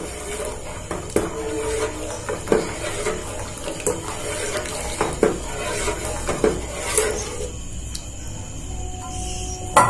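Steel spoon stirring thick rice kheer in a steel pot, scraping and clinking against the pot's sides, while melted jaggery syrup is poured in from a pan with a liquid pouring sound. The stirring strokes and clinks come irregularly, several a second at times.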